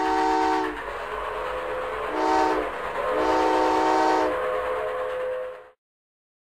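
Steam locomotive chime whistle blowing three blasts, long, short, long, over the low rumble of a running train. All sound cuts off suddenly near the end.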